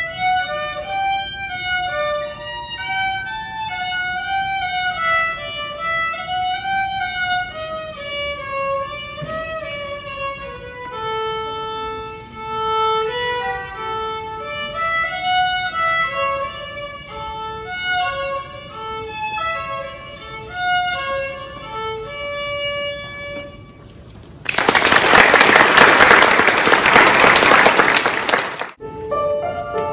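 Solo violin played unaccompanied, a single bowed melody line, ending about 24 seconds in. The audience then applauds for about four seconds, and the applause cuts off abruptly.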